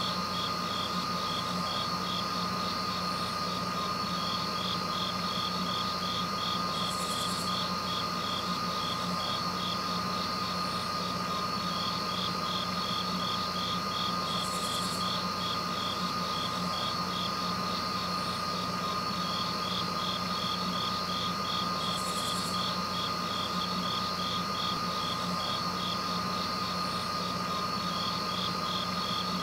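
Crickets chirping in a fast, even pulse over a steady hum and whine, with a short higher-pitched buzz recurring about every seven and a half seconds.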